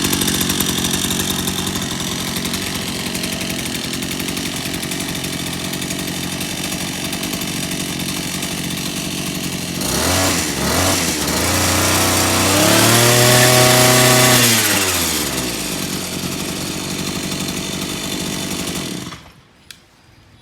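Ryobi 52cc two-stroke brush cutter engine idling steadily and running well, revved briefly twice about ten seconds in, then held at high speed for a couple of seconds and let fall back to idle. The engine sound cuts off suddenly near the end.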